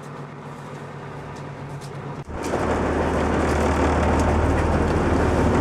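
Lobster boat's engine running steadily under a constant hiss. About two seconds in, the sound cuts to a louder, deeper engine hum with a heavier hiss over it.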